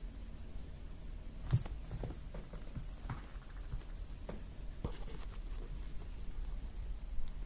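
Guinea pigs moving about in a wire pen: a run of soft, irregular taps and scuffs from paws on the floor and on the wire panel as one stands up against it, with one sharper tap about one and a half seconds in.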